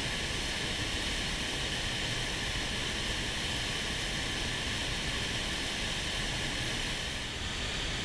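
Steady rushing of a swollen mountain river running in spate.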